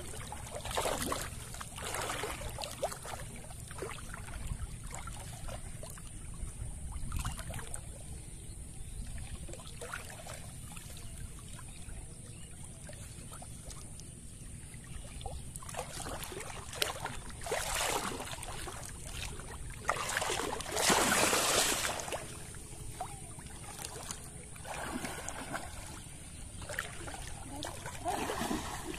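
Pond water sloshing and splashing as people wade chest-deep through it, hauling a cast net. Irregular swishes come and go, with the loudest bout of splashing about two-thirds of the way through.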